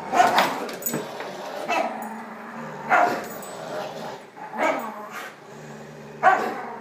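Dogs play-growling during a tug-of-war over a plush toy, broken by about six short, sharp barks spaced a second or so apart.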